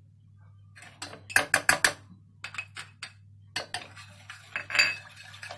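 Metal spoon clinking and scraping against a small stainless-steel saucepan of milk in short runs of quick taps, as sugar is spooned in and stirred.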